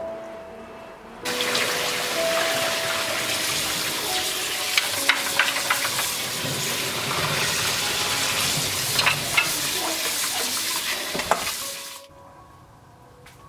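Tap water running hard into a stainless steel pot of parboiled beef short ribs in a sink, with occasional clinks against the pot as a hand stirs the ribs. The water starts suddenly about a second in and stops abruptly near the end.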